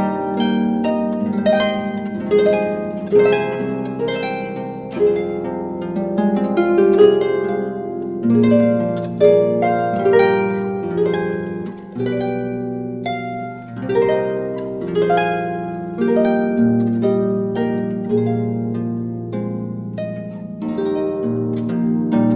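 Harp music: a slow, flowing piece of plucked notes and chords, each note ringing and fading.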